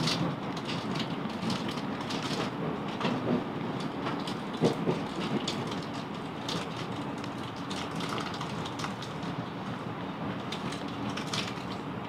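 South Western Railway Class 707 Desiro electric multiple unit: a steady hum of the train with scattered light clicks and knocks, easing slightly in level.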